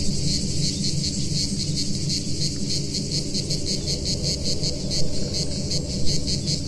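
Cicada song, a high buzz pulsing rapidly and evenly, over a low synthesizer drone.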